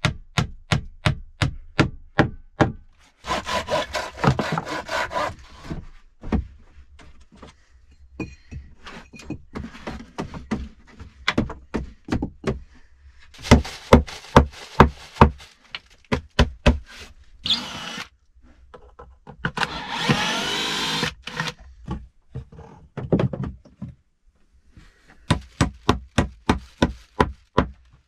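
A hammer driving nails into freshly sawn wooden boards, in runs of quick blows at about four a second. Between the runs comes the rustling of a plastic bag.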